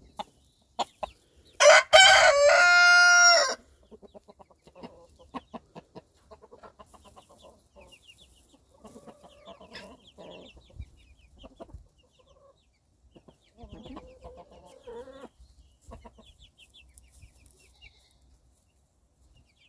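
A rooster crows once, loud, starting about two seconds in and lasting nearly two seconds. Around it, hens cluck softly, with scattered light taps of pecking at the feeder.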